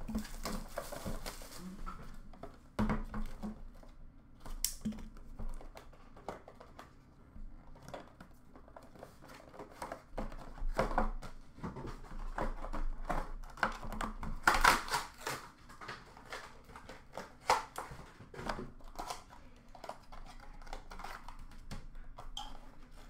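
Plastic shrink-wrap being torn and crinkled off a sealed box of trading cards while the cardboard box is opened and handled: irregular rustling, crackling and light taps, loudest about two-thirds of the way through.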